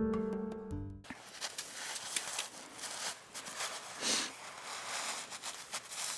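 Piano music stops abruptly about a second in. Faint outdoor noise follows, with scattered light crackles and one brief louder rush of noise about four seconds in.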